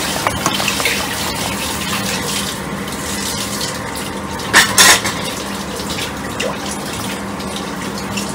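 Chicken curry bubbling in an open pressure cooker while a steel ladle stirs it, with two sharp clinks of the ladle against the pot about halfway through, over a steady low hum.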